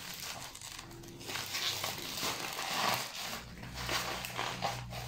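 Bubble wrap rustling and crinkling in irregular scrunches as it is pulled off a plastic-wrapped six-pack of drink cans.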